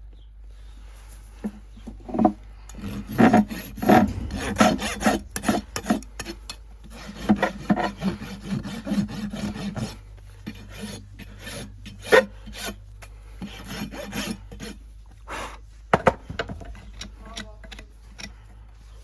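A farrier's rasp scraping across a horse's hoof in repeated strokes, with a few sharp clicks between them.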